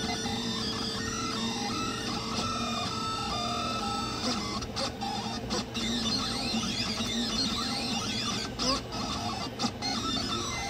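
Delta 3D printer printing, its stepper motors whining in constantly shifting pitches as the print head moves, over a steady hum. The whine briefly cuts out a few times in the second half.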